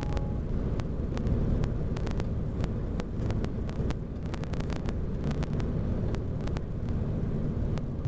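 Car travelling on an interstate: a steady low road rumble with scattered sharp clicks throughout.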